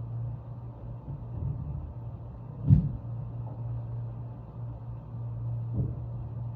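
A steady low hum, the strange noise recorded at the building, with a sharp thump about two and a half seconds in and a softer one near the end.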